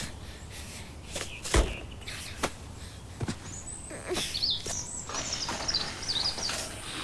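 A few short thuds of a football being kicked, the first the loudest, then high, wavering bird chirps over the second half.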